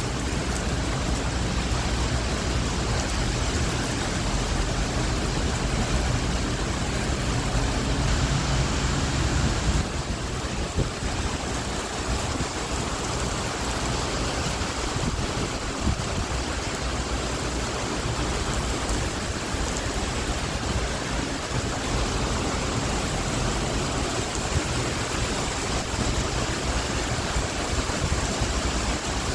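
Thunderstorm wind and heavy rain making a steady, loud hiss. A deep low rumble under it eases off about ten seconds in.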